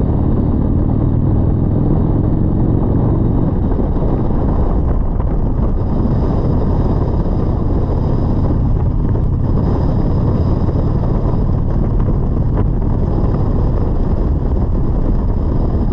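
Touring motorcycle engine running at cruising speed, heard from on the bike amid steady wind and road noise. The engine note rises slightly in the first few seconds, then holds steady.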